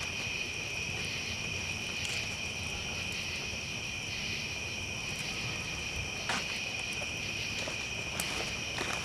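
A steady, high-pitched chorus of night insects trilling without a break, with a few short sharp clicks on top.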